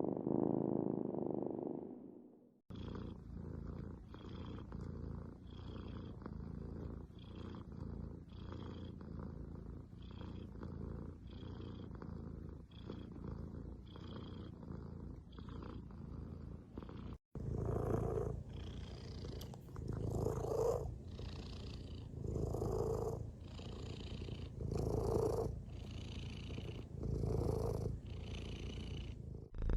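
Domestic cats purring in a run of clips: one purr fades out about two seconds in, a second purrs with quick, even breath cycles, and about seventeen seconds in a third takes over, swelling and easing with slower breaths roughly every two seconds.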